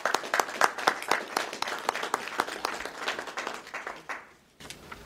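Audience applauding. The clapping dies away and stops about four and a half seconds in.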